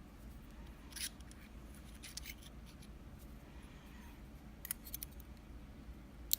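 Small sharp clicks from the pins and springs of a dimple lock being taken out as the lock is gutted: a few scattered clicks, a quick cluster near five seconds, and the loudest single click just before the end.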